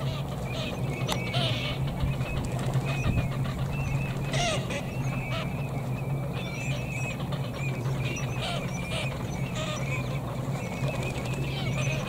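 Ducks calling from the water: short, wavering high calls repeat throughout, with a few louder rasping calls, over a steady low hum.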